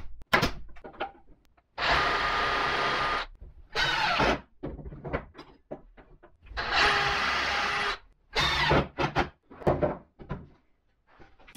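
Two sharp shots of a pneumatic pin nailer right at the start. Then a small power tool runs in two steady bursts of about a second and a half each, with short knocks of wood being handled between them.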